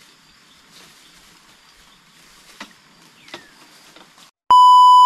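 Faint steady hiss with a few light clicks, then a loud steady electronic beep of about two-thirds of a second near the end, cut off abruptly with silence on either side.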